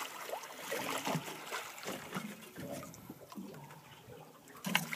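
Water lapping and trickling quietly against the side of a small boat, with a fish held in the water alongside.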